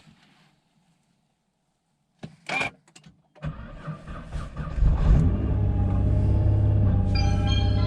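Nissan GT-R R35's twin-turbo V6 starting on a newly fitted Optima YellowTop battery: a short click, then the starter cranks briefly, the engine catches with a rev flare about five seconds in and settles into a steady idle.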